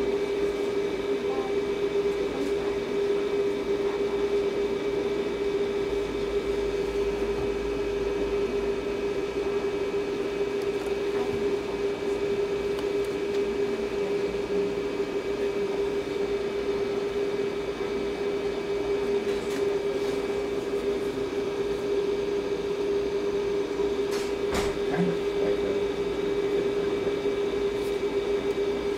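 Steady machine hum on one unchanging note, with fainter higher tones over it and one brief click late on.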